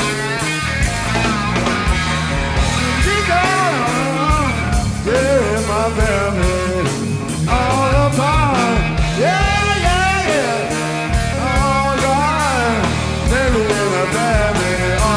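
Live rock band playing slow psychedelic blues-rock: a lead line of bending, gliding notes over electric guitar, bass and drums.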